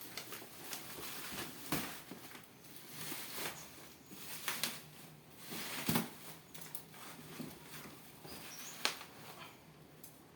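Packaging being handled and opened during an unboxing: irregular rustling, scraping and light knocks, with the sharpest knocks about two, six and nine seconds in.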